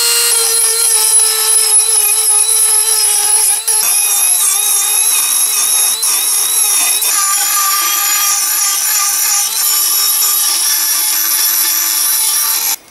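Handheld electric grinder with an abrasive bit running at high speed against steel, grinding corrosion out of a suspension arm's bearing bore: a steady high whine with a gritty scraping hiss. The pitch shifts slightly a few times under load, and the tool shuts off near the end.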